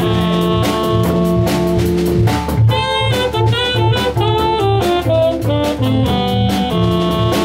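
Live jazz from a small organ combo: a drawbar organ playing chords and the bass line, an archtop electric guitar and a drum kit keeping a steady swing beat.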